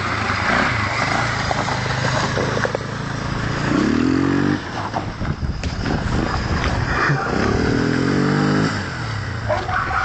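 Quad bike (ATV) engine running loud and revving up twice in rising sweeps, about four seconds in and again from about seven to nine seconds, as the quad labours through soft, flooded ground. A rider puts the struggle down to it being too soft, and maybe to wheels too small.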